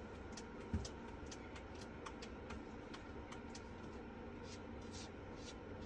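Quiet room tone: a steady low hum with faint, irregular light ticks and one soft thump about a second in.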